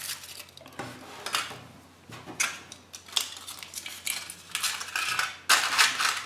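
Foil wrapper of a Kinder Surprise chocolate egg being peeled off and handled: irregular crinkling with a few light clicks and knocks, loudest near the end.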